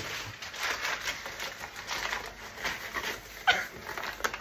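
Rustling and handling noise while searching for potatoes among stored groceries, with a short rising squeak about three and a half seconds in.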